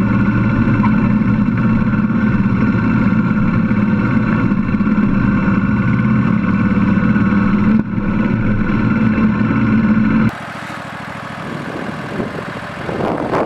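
Riding lawn tractor's engine running steadily under load while it pulls a trailer of wood chips, heard close up from on the machine. About ten seconds in it drops to a quieter engine sound heard from further off.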